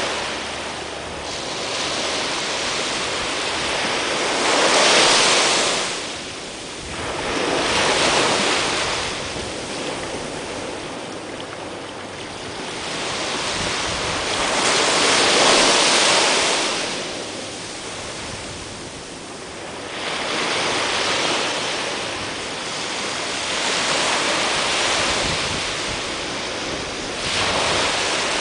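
Small waves breaking and washing up a sandy beach. The surf rises and falls in swells every few seconds, loudest about five seconds in and again around the middle.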